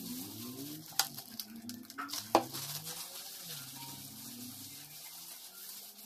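Wet squishing and rubbing of hair dye being worked into the hair by hand, with a few sharp clicks, the loudest about two and a half seconds in. Faint low wavering tones run underneath.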